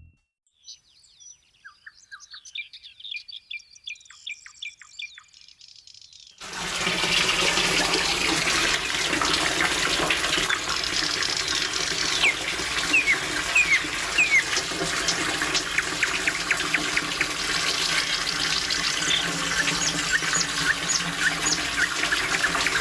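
Birds chirping and trilling alone at first; about six seconds in, the steady rush of a waterfall starts abruptly and the bird calls go on over it.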